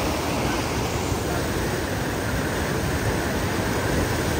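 Muddy floodwater of a river in spate rushing past steadily, a continuous even rush of churning water.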